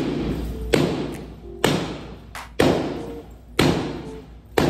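A baseball bat striking a glass window pane held in a steel frame, over and over: five heavy thuds about a second apart, each dying away before the next.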